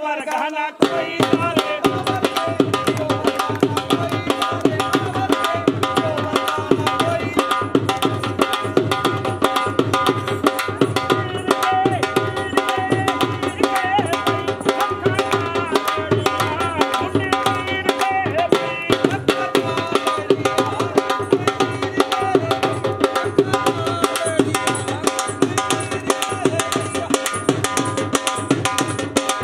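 Instrumental passage of a Punjabi song: a fast, steady hand-drum rhythm under a sustained melody line, with no singing.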